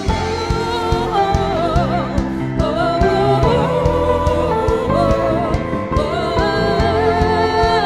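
Church praise band playing a gospel song, with singers coming in right at the start. The voices sing with vibrato over steady drum beats and bass.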